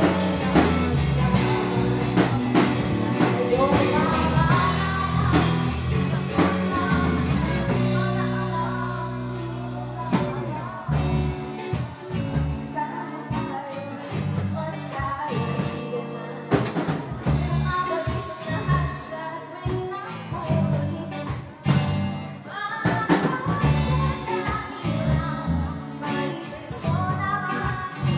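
Live rock band playing: a woman singing lead over electric bass, electric guitar and a drum kit. About ten seconds in the band drops to a sparser, quieter passage, with the drums and singing carrying on.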